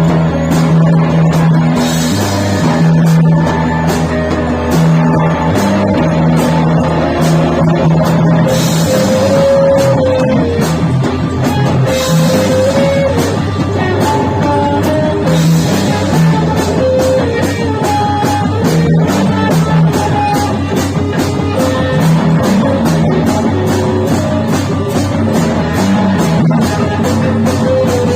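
A rock band jamming: electric guitar and drum kit playing a repetitive, driving krautrock-style groove over sustained low notes, with cymbal crashes every few seconds.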